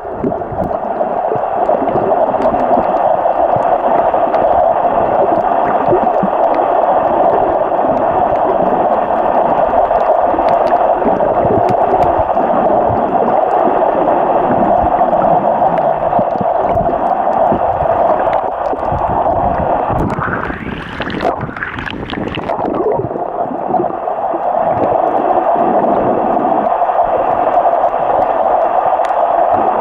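Muffled underwater rushing noise picked up by a camera in a waterproof housing, steady and loud, with a brief burst of sloshing water about two-thirds of the way through.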